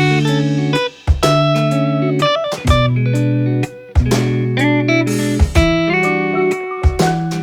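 Background music: guitar chords played in short phrases, each chord ringing out.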